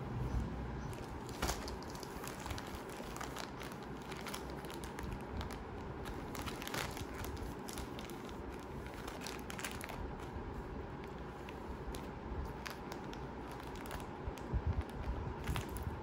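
Packaging being handled, rustling and crinkling, with scattered small crackles and clicks.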